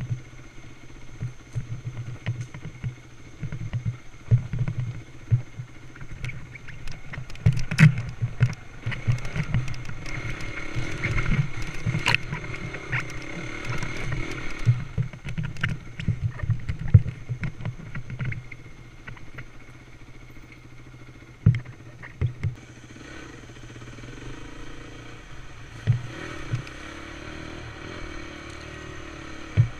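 Dirt bike engine running while riding a rough trail, with repeated knocks and clatter from the bike over bumps. The engine and knocking are busiest through the middle, then settle to a steadier run with a few sharp knocks in the last third.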